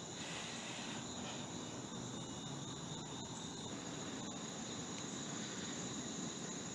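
Faint, steady high-pitched insect chirring over a low hiss.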